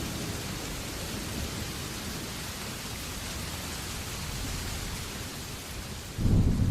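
Steady hiss of rain on a car, heard from inside. About six seconds in, a loud low rumble of thunder starts.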